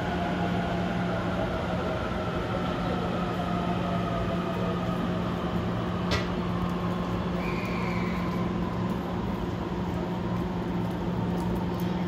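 Trains at a station platform: a steady low hum with a fainter whine that slowly falls in pitch. A single sharp click comes about six seconds in.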